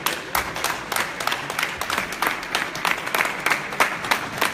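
A small group of people clapping, many quick hand claps a second.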